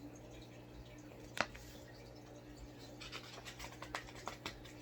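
Quiet handling of a picture book's pages: a single sharp click about a second and a half in, then a run of small ticks and light rustles in the second half, over a low steady hum.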